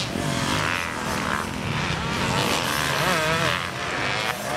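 Motocross dirt bike engines running on the track, revving up and down, the pitch rising and falling as the riders go over the jumps and round the turns.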